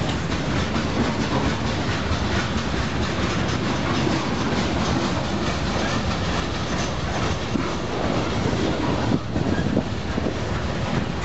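A long freight train's cars rolling past close by, boxcars and then centerbeam flatcars loaded with lumber: a steady rumble of steel wheels on the rails, with frequent irregular clicks and clatter.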